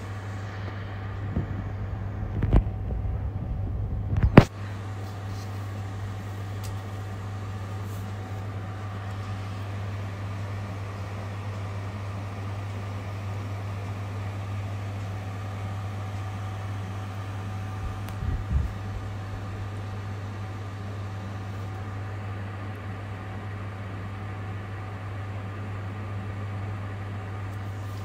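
Steady low hum throughout, with bumps and knocks from the camera phone being handled: several in the first few seconds, a sharp knock about four seconds in, and a couple of smaller bumps about eighteen seconds in.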